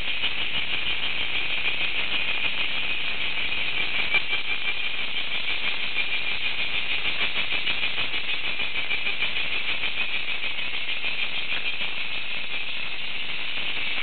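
Cicadas singing in summer trees: a loud, steady, high buzzing chorus with a fast pulsing texture.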